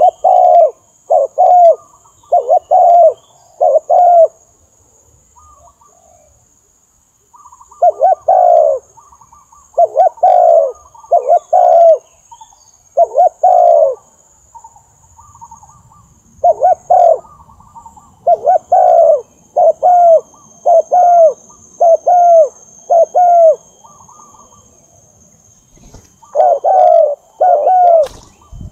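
Spotted dove cooing over and over: runs of short, loud, descending coo notes, roughly one a second, broken by brief pauses.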